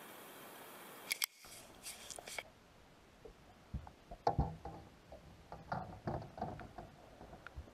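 Steady hiss for about the first second, then scattered soft clicks, taps and rustles of a fly rod and reel being handled in a small boat.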